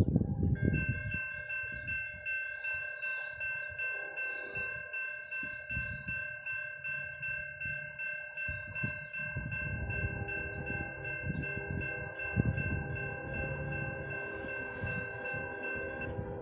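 Railroad grade crossing bell ringing rapidly and steadily, warning of an approaching train; it stops shortly before the end. Underneath, wind buffets the microphone and a low rumble builds from about ten seconds in.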